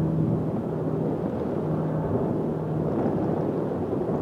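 Jet airliner's engines rumbling steadily, a deep continuous roar with a faint low hum running through it.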